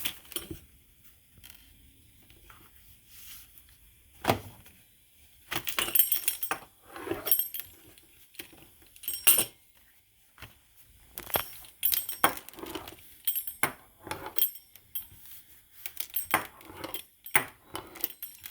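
Pizza cutter being run through tortillas, giving a string of irregular sharp clicks and short metallic rattles with quiet gaps between strokes.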